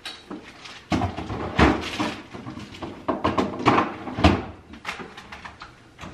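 A series of about six knocks and clunks as household things are handled, opened, shut and set down, with quieter rustling between.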